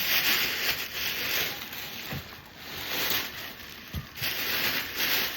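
Packaging being handled and unwrapped: rustling and crinkling that swells and fades, with a couple of soft thumps about two and four seconds in.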